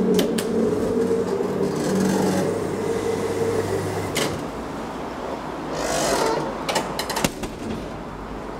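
Deve-Schindler telescopic hydraulic elevator running: a steady hum of the pump unit that dies away about three to four seconds in, followed by a sharp click, a brief swelling rush about six seconds in and a few more clicks.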